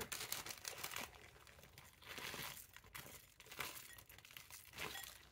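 Crinkling of a plastic salad-kit packet as its crouton strips are shaken out onto a bowl of chopped salad. It is faint and comes in several short spells.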